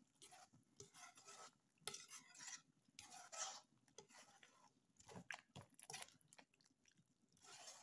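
Long-handled spoon stirring a thick pork-and-vegetable stew in a nonstick pot: faint repeated scraping and squelching strokes against the pot, about five of them.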